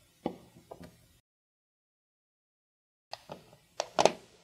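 Light clicks and scrapes of a screwdriver and fingers working the center screw of a plastic electrical-outlet cover plate: a few soft clicks, a couple of seconds of dead silence, then several sharper clicks near the end.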